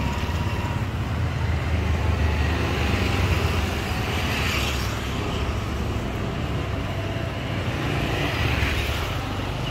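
Steady low rumble of background noise, with a hiss that swells about four seconds in and again near the end.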